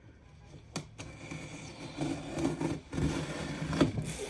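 A cardboard package being handled and turned over, with scraping and rubbing and a couple of sharp knocks, one about a second in and one near the end.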